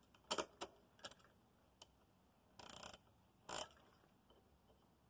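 Hand tools being handled, likely a pass-through ratchet and socket: a few sharp metal clicks in the first second and a half, then a short rasp and a clack about three seconds in.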